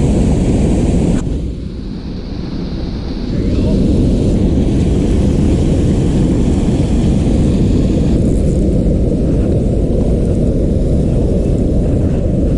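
Wind buffeting the microphone: a loud, fluctuating low rumble that starts suddenly, eases for a couple of seconds and then holds steady.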